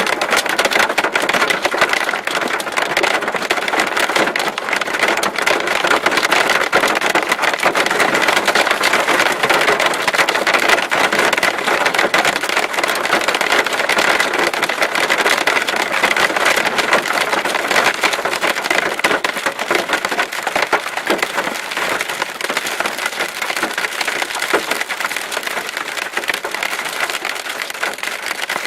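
Marble-sized hail and rain pelting a vehicle in a thunderstorm core: a loud, dense, unbroken patter of small hard impacts.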